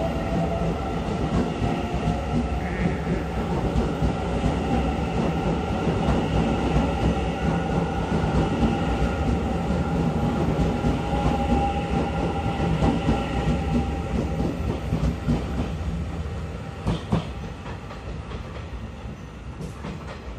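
Taiwan Railway EMU900 electric multiple unit pulling out of the station: a steady whine of several tones over the rumble of wheels on the rails. It fades over the last few seconds as the train leaves, with a couple of sharp clicks near the end.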